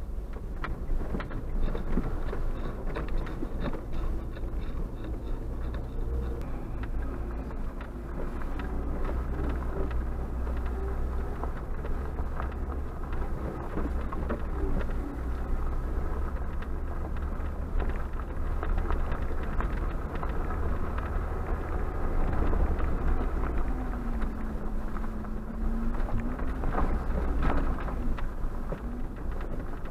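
Cabin noise of a Suzuki Jimny JB74 driving slowly over a rough gravel track: a steady low rumble of its 1.5-litre four-cylinder engine and tyres, with frequent knocks and rattles from the bumps. The engine note dips and rises again near the end.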